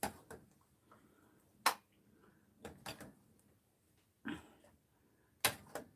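A metal ladle clinking against a pot and ceramic soup bowls as egg soup is ladled out: several short, sharp clinks spaced irregularly, the loudest at the start, about a second and a half in, and near the end.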